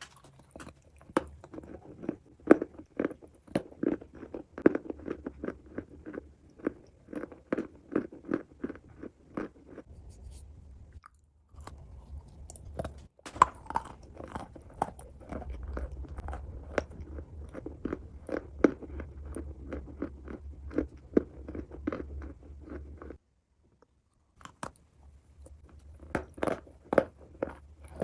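Clay being bitten and chewed close to the microphone: dense, crackly crunches that pause briefly twice.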